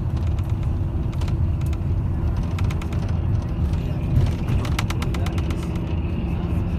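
Steady low road and engine rumble heard inside a moving vehicle at highway speed, with brief bursts of rapid rattling clicks now and then, loudest a little past halfway.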